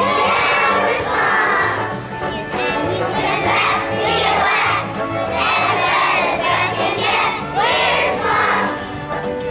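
A group of young children singing together over an instrumental accompaniment with a steady bass line.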